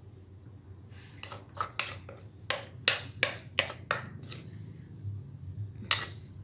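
Utensils knocking and scraping in a papaya salad mortar as the salad is tossed and mixed: a string of about ten sharp clinks, irregular, roughly two to three a second, with a gap before the last one near the end.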